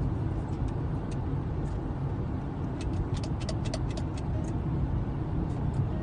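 Steady road and engine noise inside a car cabin while driving at highway speed, with scattered faint ticks, most of them about three to four seconds in.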